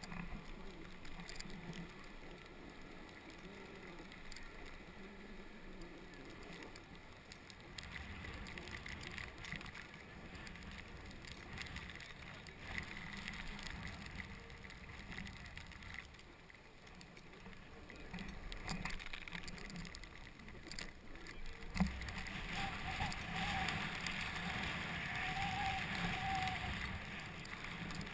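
Snowboard sliding and scraping over packed snow while riding down a run, with air rushing past the helmet-mounted microphone. The scraping grows louder after a single sharp knock about three quarters of the way through.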